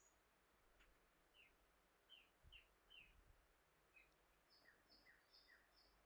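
Near silence with faint birdsong: short, quick downward chirps, some in runs of three or four.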